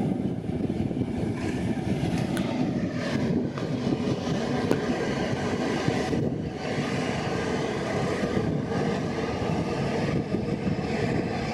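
Passenger ferry's engines running with a steady rumble as it pulls into the harbour to dock.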